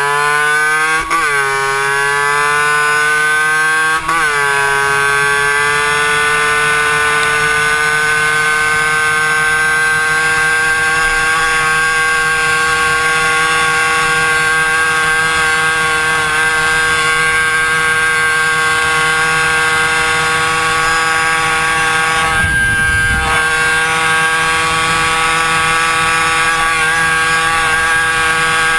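Suzuki PV 60cc moped's single-cylinder two-stroke engine running at high revs while riding. Twice near the start the pitch drops sharply and climbs again as it shifts up, then it holds a steady high note, with a brief rumble of wind on the microphone about two-thirds through.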